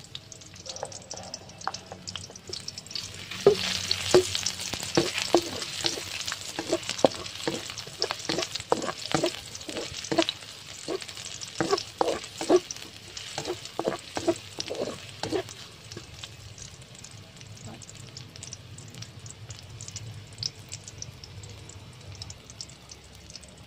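Sliced shallots sizzling in hot oil in a metal wok, with a spatula stirring and scraping against the pan about two strokes a second from a few seconds in until about two-thirds through. After that the shallots keep up a gentler, steady sizzle.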